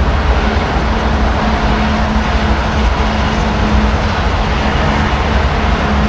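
Train passing close by: a loud, steady rumble of rolling stock on the rails, with a low steady hum underneath.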